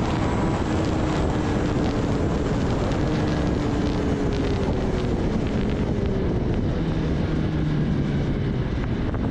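Kawasaki Ninja ZX-10R's inline-four engine running at road speed with wind rushing over the microphone, heard from on the bike. The engine note slowly falls in pitch through most of the stretch.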